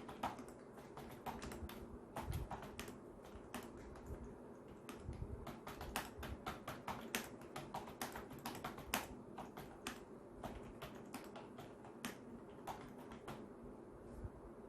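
Typing on a computer keyboard: quick, irregular key clacks, several a second, some louder than others, over a steady low hum.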